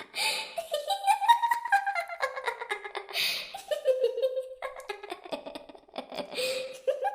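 An eerie, slow melody in a thin, flute-like tone, wandering up and down in pitch, broken by three short breathy hisses: near the start, about three seconds in, and near the end.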